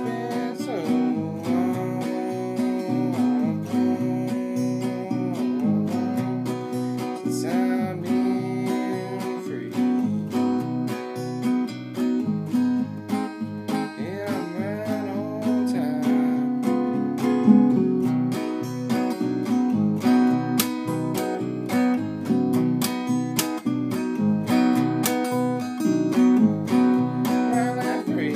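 Acoustic guitar strummed in a steady rhythm, with a man's voice singing over parts of it.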